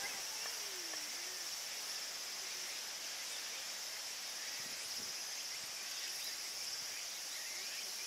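Insect chorus outdoors: a steady, high-pitched continuous drone with no breaks.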